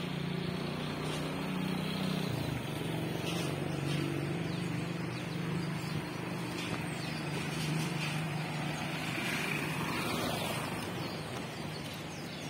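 A motor vehicle engine running with a steady low hum over outdoor traffic noise.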